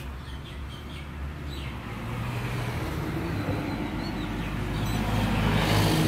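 A motor vehicle's engine running with a steady low hum that grows steadily louder as it approaches. A few faint bird chirps sound in the first second or two.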